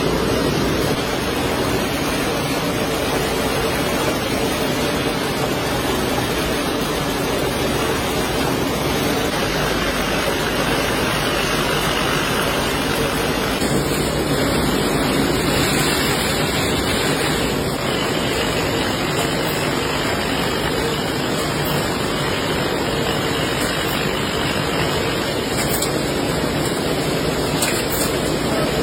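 Matchbox-factory machinery running with a steady, dense mechanical noise, with a slight change in the noise about halfway through.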